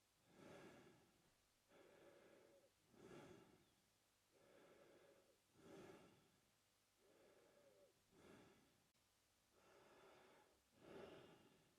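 A man breathing slowly and evenly through his mouth, faint. Each breath cycle takes about two and a half seconds, a sharper, louder breath alternating with a softer, longer one, about four and a half cycles in all.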